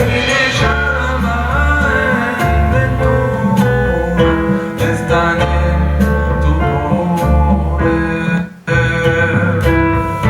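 A song with guitar and singing over a heavy bass line, played through a Pioneer HTP-072 5.1-channel home theatre system with its subwoofer. The sound cuts out for a moment near the end.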